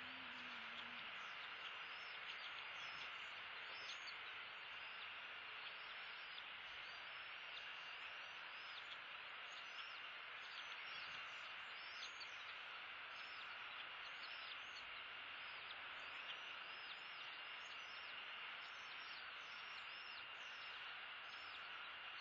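Faint outdoor ambience from a nest camera's microphone: a steady hiss with a thin high tone in it, and short high chirps repeating about once or twice a second throughout.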